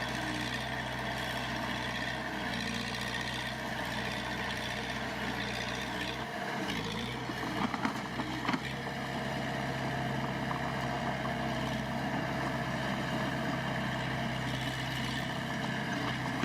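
Heavy earthmoving machine's diesel engine running steadily. Its note dips about six seconds in, with a couple of sharp knocks shortly after, then it steadies again.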